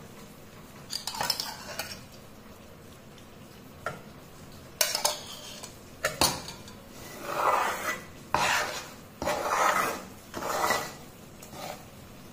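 Steel ladle scraping and stirring against a metal pan, mixing roasted gram flour with hot ghee into a paste. A few separate scrapes, then a steady run of strokes about once a second.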